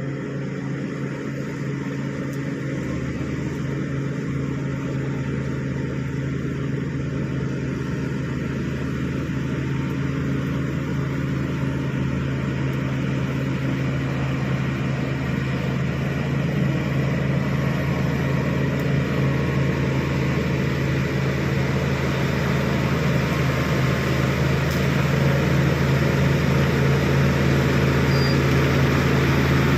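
Shantui SD16 bulldozer's diesel engine running steadily with a low drone, growing gradually louder.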